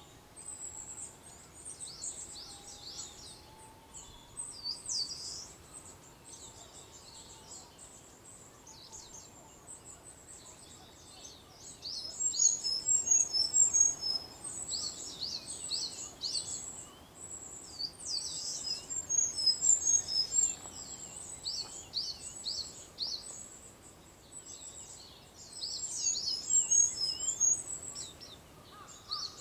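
Wild songbirds chirping and twittering in quick, high notes over a faint outdoor background hiss, in three louder, busier bouts through the second half.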